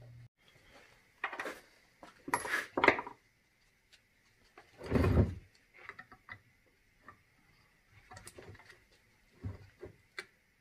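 Tools being handled on a wooden workbench: a few knocks and clatters, the loudest about two and a half and five seconds in, then lighter taps and clicks as a soldering iron is worked against a battery pack's circuit board. A low hum stops just after the start.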